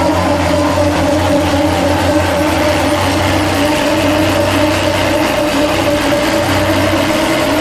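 The engines of an AM General 6x6 military truck and a big converted-semi mud truck run hard under load as the two trucks pull against each other in a tug of war, a loud, steady drone held at constant revs.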